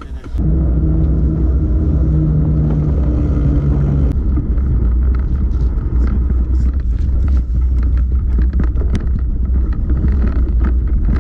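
Loud wind rumble on an action camera's microphone while mountain biking along a rough dirt track, with many short clicks and rattles from the bike over bumps. A steady low hum runs through the first four seconds or so.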